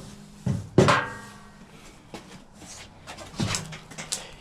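Two blows of a rubber mallet on a motorcycle's rear axle, tapping it home through the wheel, the second with a brief metallic ring. Then a few lighter knocks and clunks of handling near the end.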